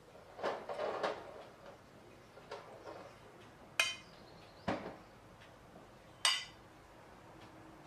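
Metal spoon stirring soup in a ceramic bowl: soft stirring sounds, then the spoon clinks against the bowl twice with a short ring, about four and six seconds in.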